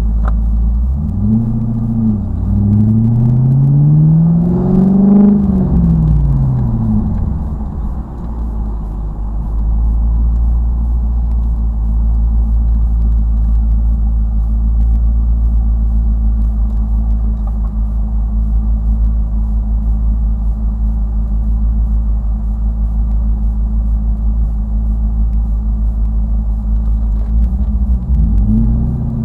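Car engine heard from inside the cabin, with road rumble. It revs up about a second in, peaks around five seconds and falls away by eight, then settles into a steady low drone. It starts revving up again near the end.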